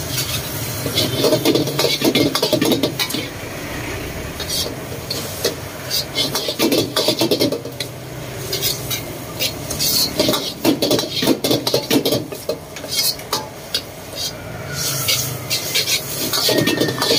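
Metal ladle and spatula scraping and clanking against a steel wok while stir-frying noodles, in bursts of rapid strokes every few seconds, with food sizzling underneath.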